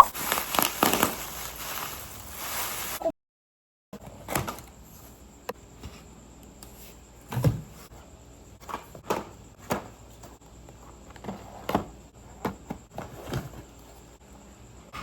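Packaging rustling and crinkling as a box is opened. After a brief cut come scattered, irregular clicks and knocks of small hard items being handled.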